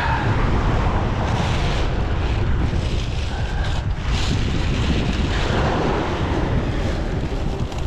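Wind buffeting the microphone, over the wash of sea waves.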